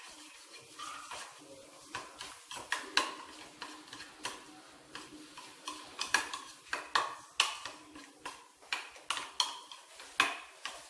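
Metal spoon stirring a sauce in a white ceramic bowl, clinking against the bowl in repeated, irregular taps, about two a second.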